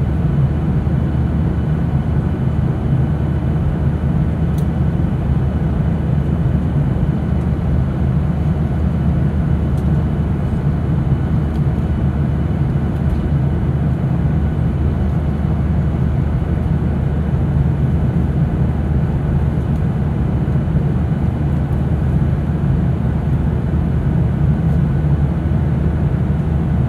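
Steady cabin noise inside a Boeing 737 at cruise: a constant low rumble of airflow and jet engines, with a faint steady high tone above it.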